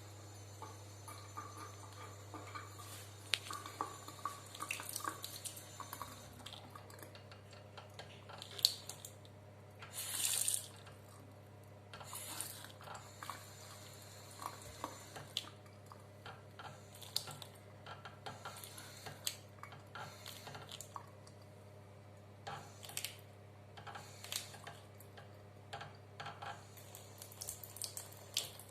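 Water dripping and splashing in a bathroom sink, with many small irregular clicks and splashes over a steady low hum. There is a brief louder rush of water about ten seconds in.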